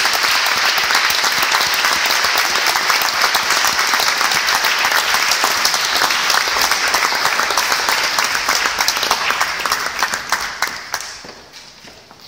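Audience applauding, a dense steady clapping that dies away near the end to a few last scattered claps.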